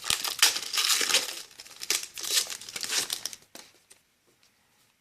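Foil booster pack wrapper crinkling and tearing as a trading-card pack is opened by hand, stopping about three and a half seconds in.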